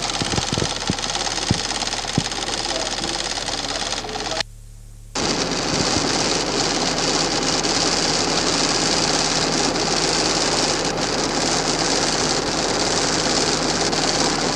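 A steady rapid mechanical whirring with hiss and a low hum, with a few soft knocks in the first two seconds. It drops out for about half a second some four and a half seconds in, then comes back louder and brighter.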